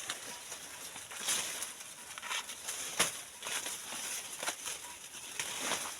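Dry maize leaves and husks rustling and crackling as cobs are broken off the stalks by hand, with one sharper crack about three seconds in.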